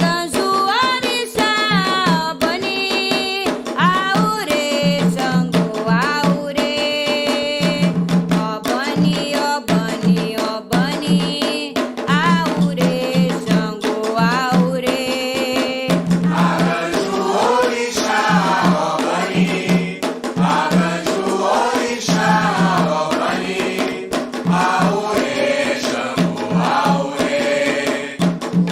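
Candomblé chant for the orixá Xangô: sung voices over a steady beat of atabaque drums and percussion. A clearer, more single-voiced line gives way about halfway through to a fuller chorus of many voices singing together.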